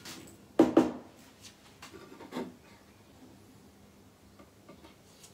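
Hammer driving nails into a wooden batten: two sharp blows a little over half a second in, then lighter knocks about two seconds in, followed by faint handling of the wood.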